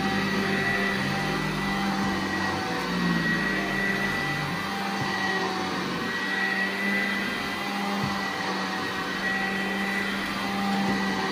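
Vacuum cleaner running steadily over carpet, a continuous hum with a high whine, during the dry pre-vacuum before carpet cleaning.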